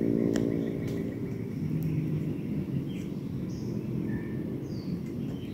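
Low steady engine drone from a distance, fading out about a second in, over forest ambience with a few short bird chirps and faint clicks.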